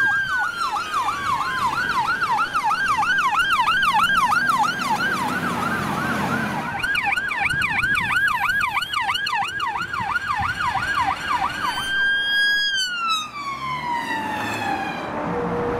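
Electronic emergency-vehicle siren on the yelp: fast up-and-down sweeps, about two to three a second, after a short rising wail at the start. About twelve seconds in it switches to wail, one long rise and a slow fall.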